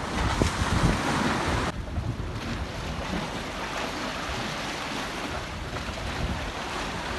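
Wind buffeting the microphone over choppy sea waves washing against a breakwater of concrete blocks.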